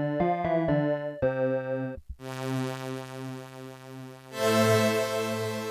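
Casio HT-700 keyboard playing its built-in tones. First come about six short, quickly changing electric-piano chords. After a brief break come held chords, and a little past four seconds in a brighter, fuller strings-tone chord enters.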